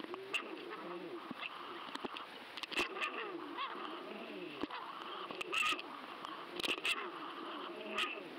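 Underwater sound picked up by a camera in a waterproof housing on a fishing line, with a fish fighting on the hook and sharks closing in: a wavering, warbling tone with sharp clicks and knocks scattered through it.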